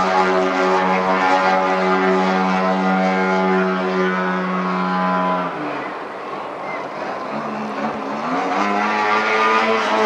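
Radio-controlled aerobatic model airplane's propeller engine running at high throttle with a steady pitch, then throttled back about five and a half seconds in with a falling pitch, and opened up again near the end with a rising pitch.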